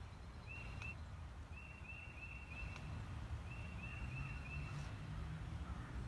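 A bird chirping in three quick runs of short, high, repeated notes over a steady low rumble.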